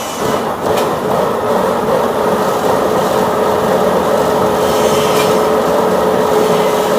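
Wood-cutting saw machine running steadily through tree timber, a continuous grinding rasp with one steady whining tone.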